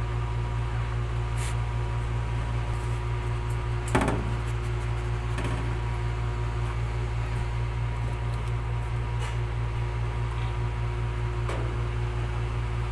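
A steady mechanical hum, like an electric fan or appliance motor, with one sharp knock about four seconds in and a few faint clicks.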